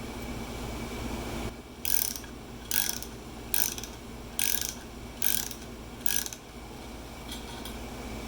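Hand ratchet wrench being worked in six short back-strokes, each a quick run of clicks, roughly one every 0.8 seconds, over a steady shop hum.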